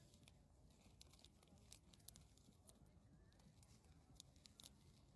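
Near silence: a faint low background hum with scattered faint ticks and rustles.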